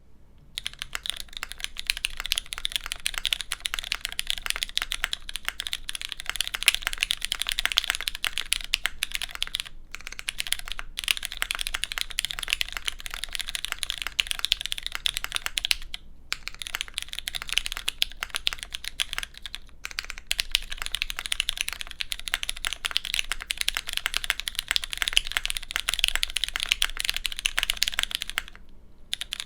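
Fast continuous typing on a custom 60% mechanical keyboard (hid.n Midway60) with lubed, filmed Cherry MX Brown tactile switches on a carbon-fibre plate and GMK keycaps. The keystrokes come as a dense stream of sharp clacks with a slight resonance from the carbon-fibre plate, pausing briefly a few times and for about a second near the end.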